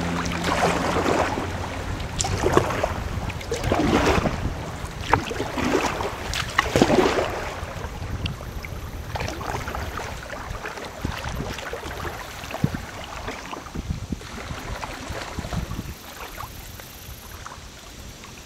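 Kayak paddle strokes splashing and river water rushing through a riffle, with surges of splashing about once a second at first. After about eight seconds it settles to quieter flowing water with scattered small splashes and knocks.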